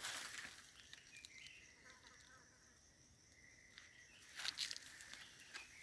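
Footsteps crunching and rustling in dry leaf litter, once at the very start and again about four and a half seconds in. Between them it is quiet apart from a faint, steady high tone in the background.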